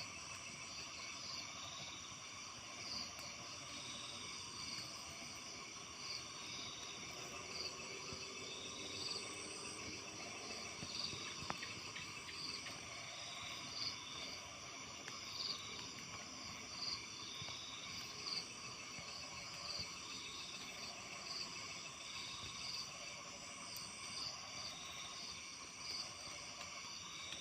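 Chorus of crickets and other insects: a steady, layered trill, with one pulsing call repeating about every second and a half.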